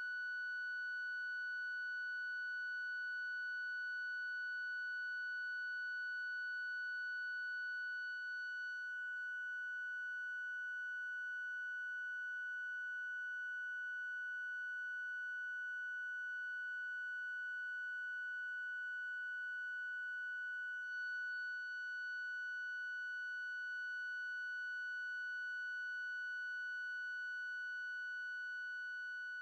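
Violin plate driven by a steady high-pitched sine tone, one resonant mode of the plate, which makes the salt on it gather along the nodal lines. It fades slightly at the very end.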